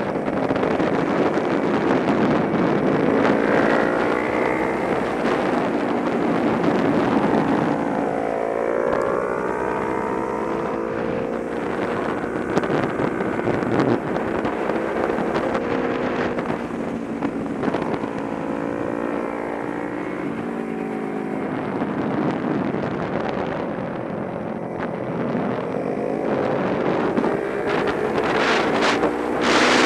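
Kawasaki Ninja 250 sport bike's engine heard onboard at speed, its pitch climbing as it revs up and dropping back several times with gear changes and corners, over steady wind rush on the microphone.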